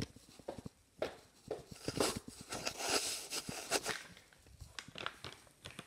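Footsteps across a tiled floor and handling noise close to a phone, with scattered light knocks and a stretch of rustling.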